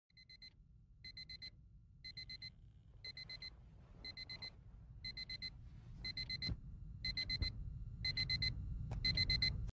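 Digital alarm clock beeping: a quick group of high beeps about once a second, growing steadily louder, over a faint low rumble.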